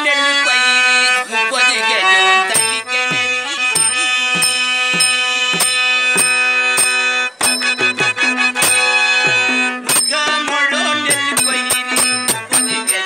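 Harmonium playing a melody over a sustained drone, joined about two and a half seconds in by a double-headed hand drum beating a steady rhythm, its low strokes sliding down in pitch.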